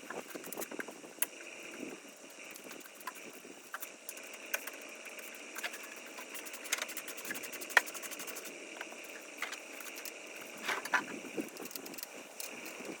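Scattered light metallic clicks and clinks, irregular and a second or so apart, over a steady faint hiss: hand tools and loose metal parts being handled while an ATV is taken apart.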